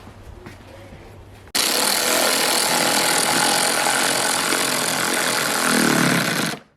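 A loud power tool running steadily, starting suddenly about a second and a half in and cutting off abruptly near the end.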